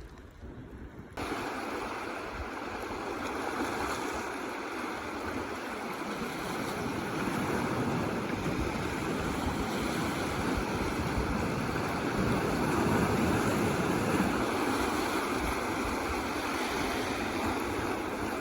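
Baltic Sea waves washing on the shore: a steady rushing that cuts in abruptly about a second in and swells and eases a little.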